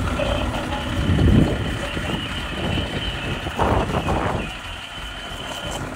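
A truck's engine running, a steady low rumble with a thin, steady high-pitched tone above it; it swells louder about a second in, and a brief rushing surge comes about three and a half seconds in.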